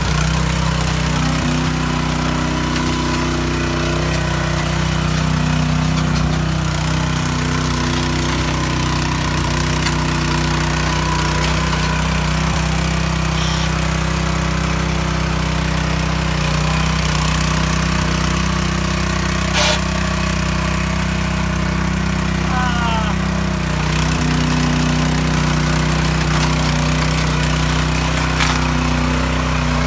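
Small petrol engine of a red walk-behind rotary tiller running steadily while its tines churn through wet concrete, with a single sharp knock about twenty seconds in.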